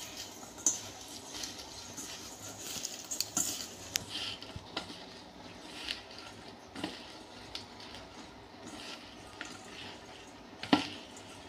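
Chopped colocasia leaves being tossed by hand with gram flour in a bowl: soft rustling and crinkling of the leaves, with scattered light clicks of fingers against the bowl and one sharper knock near the end.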